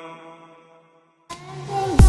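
Background music: a song fades out to a moment of silence about halfway through. Then an electronic track starts and swells in near the end.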